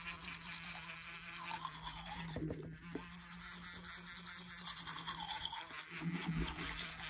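Electric toothbrush buzzing steadily as it scrubs across the teeth and tongue.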